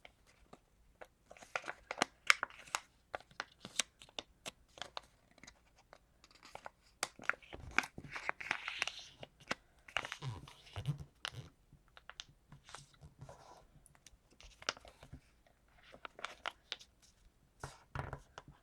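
A sheet of paper being folded in half and creased by hand: repeated crisp rustles and crackles, with sharper snaps of the paper now and then.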